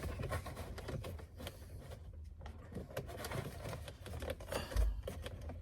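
Faint scattered clicks and ticks of plastic interior trim pieces being handled and worked loose, with a short low thud near the end.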